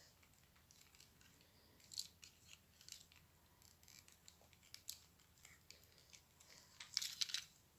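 Near silence: room tone with faint scattered clicks and rustles, a little more frequent near the end.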